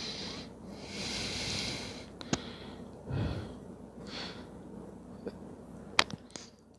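A man breathing audibly close to the microphone in slow hissy breaths while he works, with two sharp clicks, one a little over two seconds in and one near the end.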